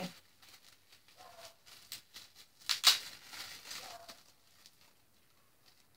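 Small dog whimpering softly in short whines, with a brief louder snuffly burst near the middle and light handling noises.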